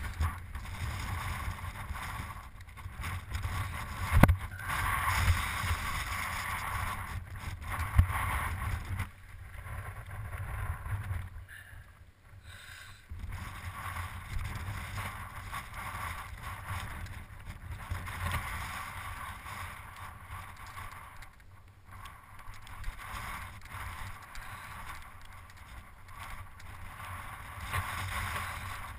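Mountain bike rolling over a rocky gravel path, tyre noise on grit and stones with wind buffeting the microphone. A sharp knock about four seconds in and another near eight seconds as the bike jolts over rocks.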